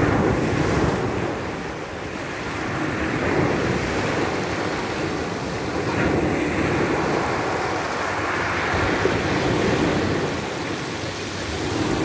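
Small waves breaking and washing up over a pebble beach, the surf swelling about every three seconds as each wave comes in.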